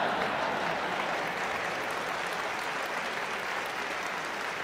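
Audience applauding, a dense steady clapping that eases off slowly.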